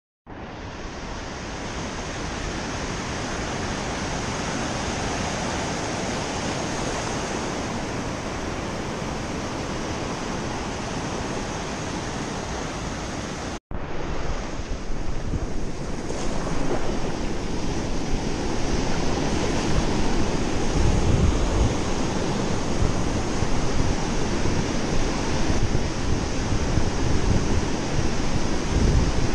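Surf breaking and washing up a sandy beach, a steady rush of water, with wind buffeting the microphone. An abrupt cut about halfway through, after which it is louder, with gusts of low wind rumble near the end.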